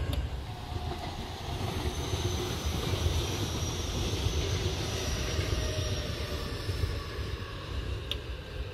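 Electric commuter train running past on the track: a steady rumble of wheels on rail, with a faint motor whine that falls slowly in pitch.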